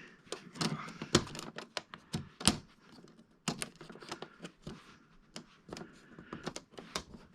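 Irregular sharp clicks and taps of small parts being handled and pressed into place while a flat-screen TV is reassembled, several a second at first and then sparser.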